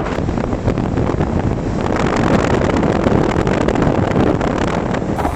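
Storm wind buffeting the microphone: a dense, steady rush of noise.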